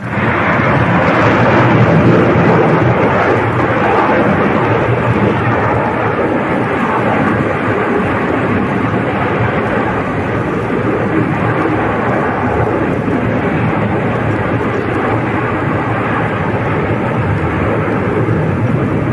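A loud, steady roar of even noise with no distinct knocks or tones, starting abruptly.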